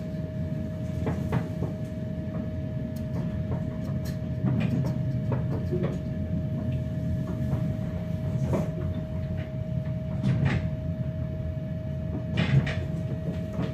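Ride noise inside a moving RA2 diesel railbus: a steady low rumble with a constant whine over it, and scattered short clicks and knocks.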